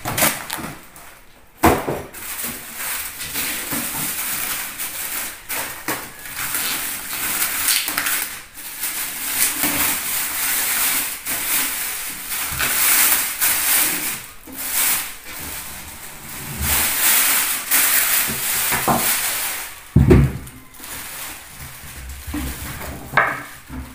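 Plastic wrapping crinkling and rustling as a boxed amplifier is pulled from its cardboard carton and unwrapped, with cardboard and foam packing scraping. A few sharp knocks, and one heavy thump near the end as the unit is set down.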